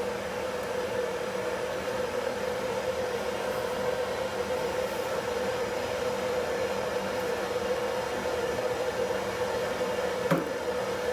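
Soldering torch burning with a steady hiss and a constant hum, heating the gas tank's metal, with one short tap near the end.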